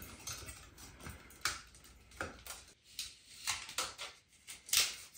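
Scattered light clicks and small metallic rattles from a metal electrical junction box and its flexible metal conduit being handled at the ceiling as wires are worked into the box; the loudest click comes near the end.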